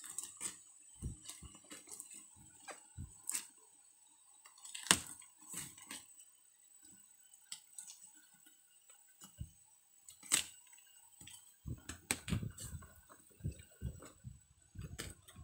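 Packing tape being torn and a cardboard box being pulled open by hand: scattered sharp ticks and short crackling rustles, growing into denser rustling near the end as the flap comes up.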